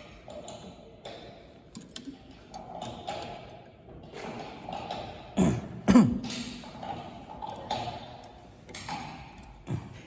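Irregular clicks and knocks of handling, with a sharp click about two seconds in and two louder thumps about five and a half and six seconds in.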